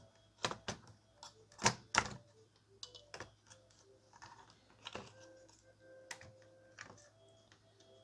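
Irregular clicks and knocks of hard plastic and metal laptop parts as the hard drive is handled and set back into the open laptop, the loudest pair about two seconds in.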